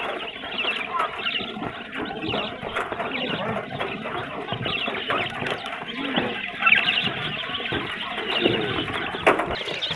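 A crowd of baby chicks peeping without pause: many short, high chirps overlapping one another.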